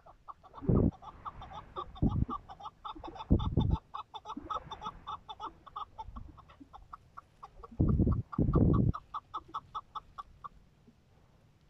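Young chukar partridge calling: a fast, even run of short clucking notes, about five a second, that stops about ten and a half seconds in, with a few louder noisy bursts among them.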